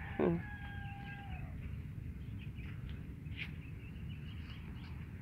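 A short animal call: a quick falling cry, then a held, slightly falling note lasting about a second. After it comes a low outdoor background with faint rustling and clicks.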